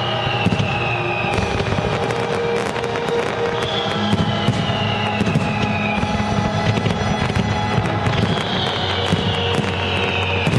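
A dense fireworks barrage of rapid bangs and crackling over the show's music soundtrack. Three high tones fall slowly in pitch, about every four to five seconds.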